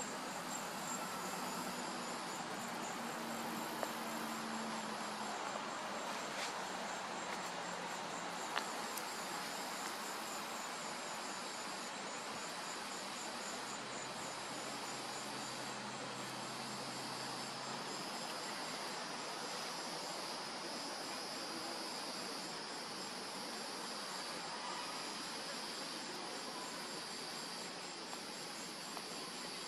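Insects chirring steadily in a high, evenly pulsed trill, with a few brief clicks about 4, 6 and 9 seconds in.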